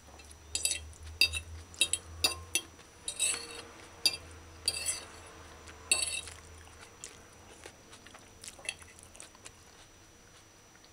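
Metal fork clinking and scraping against a plate while gathering up spaghetti. The clinks are frequent for the first six seconds, then come as a few fainter taps.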